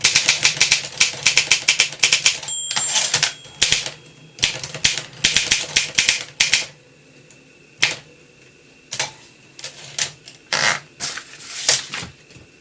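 1935 Olympia Elite manual typewriter being typed on: rapid runs of type bars striking the platen, with a short ring about two and a half seconds in. In the second half the keystrokes thin out to a few separate strikes.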